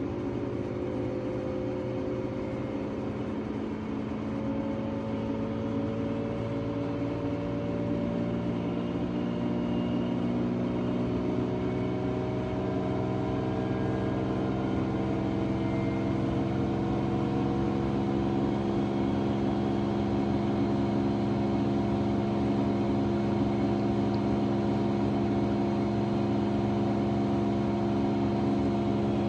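LG AiDD direct-drive washing machine speeding up in its spin: a motor whine of several tones that rise slowly in pitch and grow a little louder, then hold steady about two-thirds of the way through.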